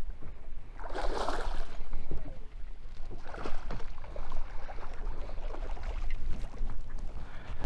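Wind buffeting the microphone as a steady low rumble, with water splashing at the surface about a second in and again around three and a half seconds, as a hooked bass is fought to the boat.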